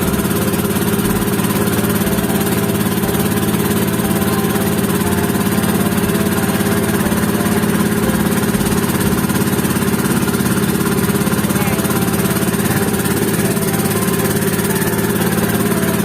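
Engine of a motorized bangka (outrigger boat) running steadily at an even speed.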